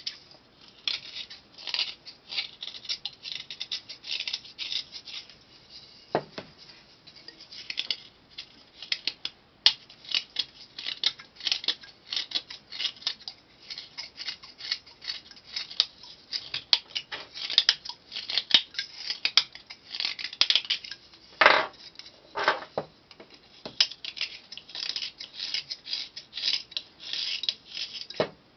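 A whittling knife carving and scraping dried La Doll stone clay in quick, repeated short strokes. A few sharper knocks come along the way.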